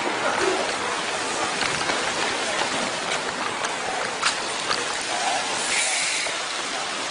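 Steady rushing, hissing noise of heavy rain and running water, with a few faint clicks near the middle.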